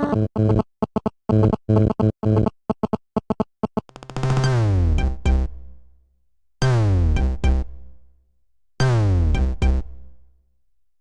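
Synthesized phone ringtone: a run of rapid, short electronic notes, then about four seconds in a falling synthesizer sweep over a deep bass that repeats three times, each one fading out before the next.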